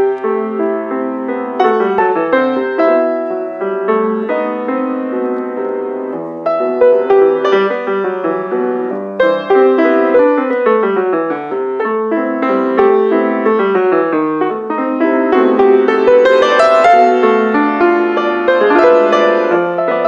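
Grand piano played four hands: a continuous duet with many notes sounding at once.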